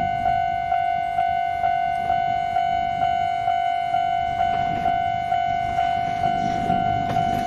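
Railway level-crossing warning bell ringing in its electronic clang, one steady tone struck about twice a second, signalling an approaching train. A low rumble swells underneath near the end as the train nears.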